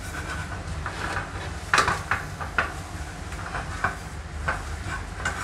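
Wooden spatula stirring fried noodles in a frying pan on a gas stove, with scattered clacks and scrapes against the pan, the loudest about two seconds in. A steady low hum runs underneath.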